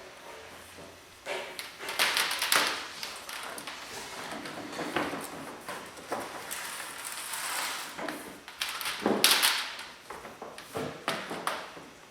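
PEX water lines and the old lines they are taped to scraping and rustling as they are pulled through the floor, in irregular bursts of dragging.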